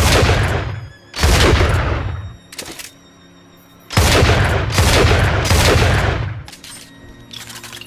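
Double-barrel shotgun shots: a blast at the start, another about a second later, and a close run of blasts from about four seconds in, each with a long booming tail. Short quieter clicks come between the shots and near the end.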